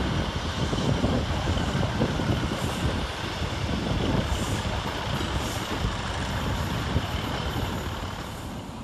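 Two coupled ScotRail Class 156 diesel multiple units running past, a steady rumble of diesel engines and wheels on rail that fades in the last second or so.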